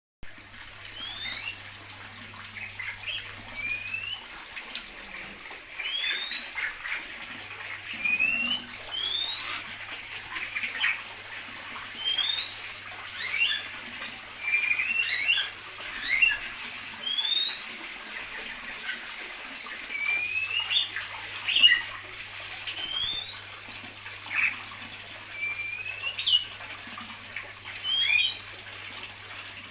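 Several small aviary birds chirping, with short, rising whistled calls coming one after another every second or so.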